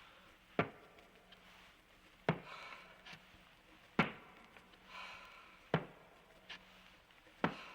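Slow, heavy breathing from a Halloween sound-effects record, with a sharp click or knock repeating evenly about every one and three-quarter seconds.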